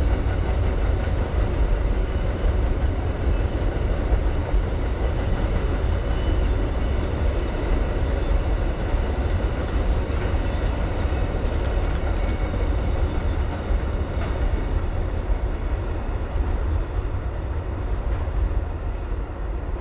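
Amtrak Auto Train rolling past over a trestle bridge: a steady, heavy rumble of wheels on rail, with a few sharp clicks about halfway through.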